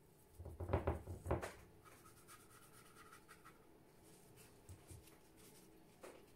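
Rubbing and scraping sounds with a few soft knocks in the first second and a half, then faint scattered rustles and ticks: handling of watercolour brush and painting materials.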